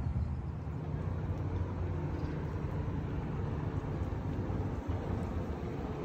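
A steady low engine rumble.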